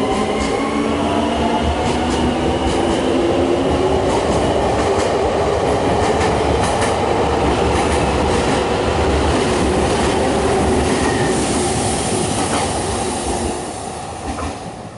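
Senboku Rapid Railway 5000-series electric train accelerating past at close range: a motor whine rising in pitch at the start, then steady wheel and rail noise with rail-joint clicks. It fades near the end as the train pulls away.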